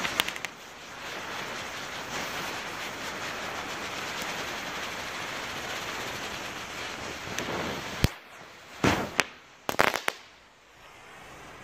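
A Category 1 ground firework burns with a steady, loud hiss for about seven seconds. It then ends in a run of sharp cracks, one followed by a few more in quick succession over the next two seconds.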